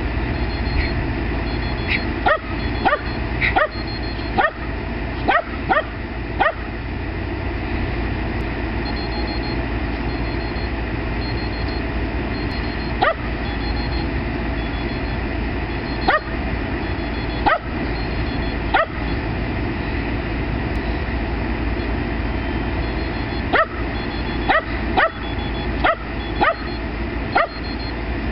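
Shetland Sheepdog barking in short, sharp yips. A quick run of barks comes a couple of seconds in, then single barks spaced several seconds apart, then another quick run near the end.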